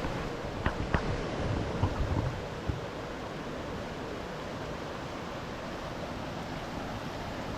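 Steady rush of water from a waterfall and its rapids, an even hiss with no change. A few short knocks come in the first three seconds.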